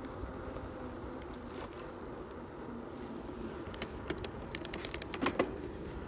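Loaded touring bicycle rolling along an asphalt road: a steady low rush of tyres and wind, with a run of light clicks and rattles about four to five seconds in.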